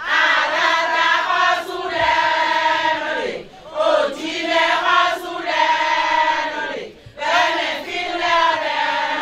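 A group of women singing together into a microphone, a chant-like song in phrases of about three seconds, each phrase ending in a falling glide.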